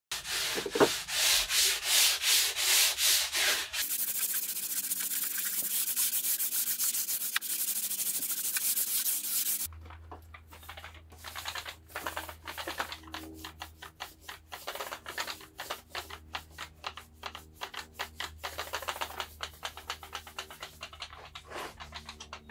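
Hand sanding along a laminated wooden beam: rhythmic back-and-forth rubbing strokes, then a spell of fast continuous rubbing. About ten seconds in the sound changes abruptly to quieter, more irregular strokes over a steady low hum.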